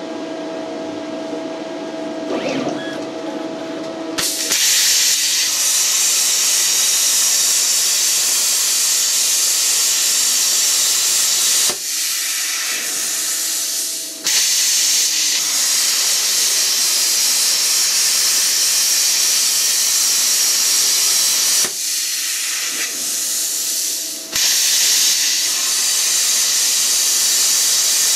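CNC plasma cutter piercing and cutting 10 mm (3/8 in) steel plate, with the holes cut first. After a steady machine hum, the arc's loud, even hiss starts about four seconds in. The hiss stops twice for a couple of seconds as the torch moves from one hole to the next.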